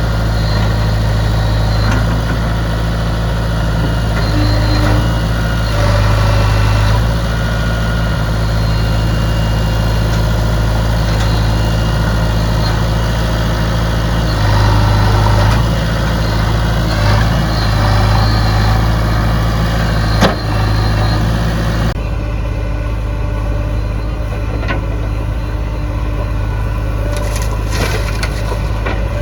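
JCB 3DX backhoe loader's diesel engine running steadily, swelling louder several times as it works, with a single sharp knock about twenty seconds in.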